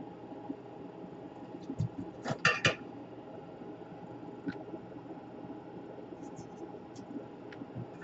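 Small metal tools and parts being handled on a workbench during laptop jack soldering: a quick cluster of clicks and clatter about two seconds in, a few light ticks later, and another sharp click near the end, over a steady low hum.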